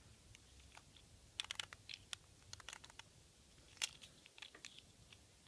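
Faint scattered clicks and taps of small plastic Micro Drifters toy cars handled in the fingers, with a few louder clicks about a second and a half in and again near four seconds.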